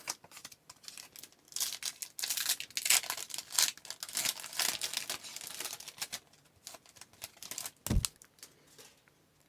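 A foil trading-card pack wrapper crinkling and tearing open, followed by lighter card-handling clicks and one soft thump near the end.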